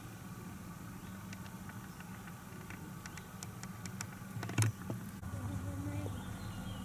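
Steady low outdoor hum with scattered light ticks, then one sharp knock about four and a half seconds in as the camera is picked up and moved.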